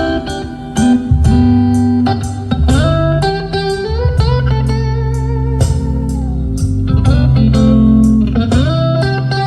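Recorded instrumental music played loud over an audio system: a slide guitar with notes gliding up and down between pitches, over deep sustained bass notes.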